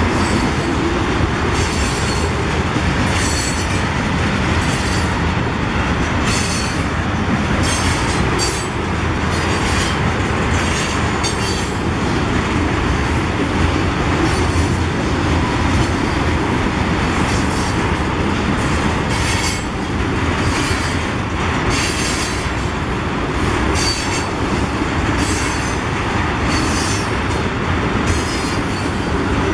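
Freight train of tank cars rolling past at close range: a steady rumble of wheels on rail, with irregular short, high-pitched wheel squeals.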